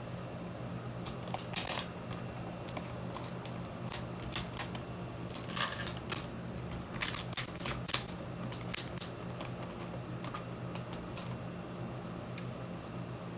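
Scattered sharp clicks and taps of small hard plastic and metal parts as a keyboard is taken apart with a screwdriver. They come irregularly through the first two-thirds, the loudest near the end of the run, over a steady low hum.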